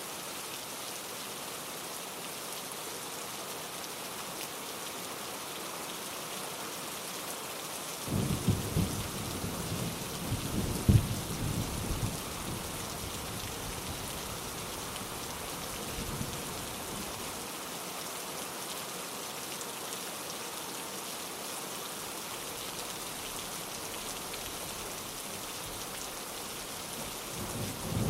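Steady rain falling, with a roll of thunder rumbling about eight seconds in that peaks a few seconds later, and another rumble building near the end.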